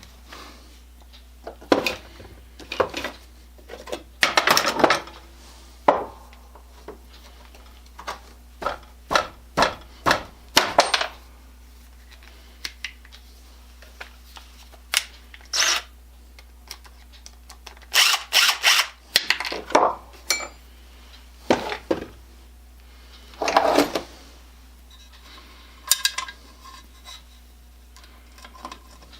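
Hand tools and metal parts clinking and knocking as they are handled during small-engine work. The sounds come as irregular short clicks, with a few longer rattling bursts of about a second, over a steady low background hum.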